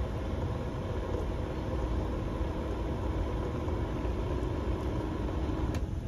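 Condensate pump running, its motor humming steadily as it pumps water out of its reservoir, then shutting off near the end. It empties promptly, a sign that the pump is working properly. A steady low rumble runs underneath.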